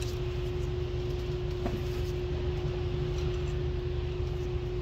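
Steady mechanical background hum with one constant drone tone over a low rumble, with one faint click about a second and a half in.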